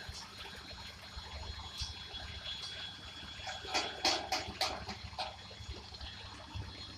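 Train of flatcars loaded with concrete sleepers rolling slowly past: a steady hiss and rumble of steel wheels on rails, with a cluster of sharp clicks and squeaks about four seconds in.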